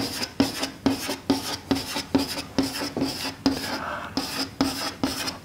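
Chalk on a blackboard drawing small circles one after another: a sharp tap and short scrape about twice a second, in a steady rhythm.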